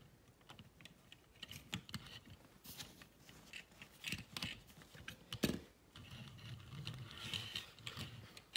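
1/64-scale die-cast pickup and car trailer pushed by hand over a play mat: faint scattered clicks and light plastic-and-metal rattles, with one sharper click about five and a half seconds in.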